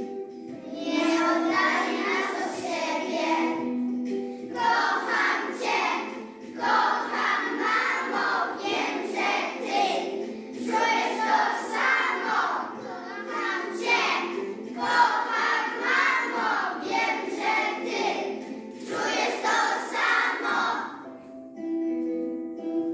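A group of young children singing together in phrases with short breaths between them, over an instrumental backing track. The singing stops near the end and the backing music continues alone.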